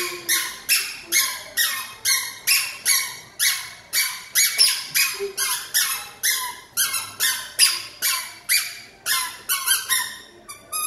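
A toddler's squeaky sandals squeaking with each step as the child walks on a tiled floor, about two to three squeaks a second. The squeaking stops near the end as the child comes to a halt.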